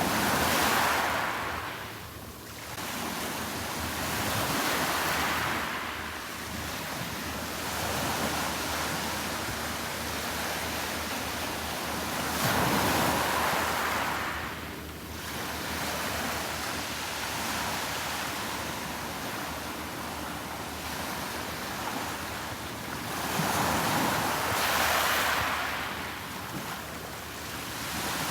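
Sea waves breaking and washing up the beach, the surf swelling and fading at irregular intervals several seconds apart.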